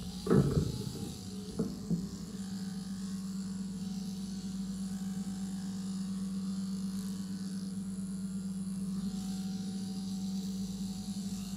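Overhead-drive electric sheep-shearing machine running with a steady hum while a sheep is being shorn. A short loud burst comes about half a second in, then two sharp knocks about a second later.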